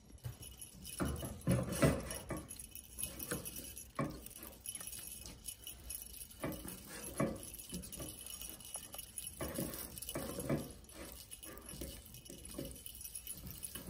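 Silicone spatula stirring a thick melted chocolate mixture in a stainless steel saucepan: irregular scrapes, knocks and sticky squelches against the pot.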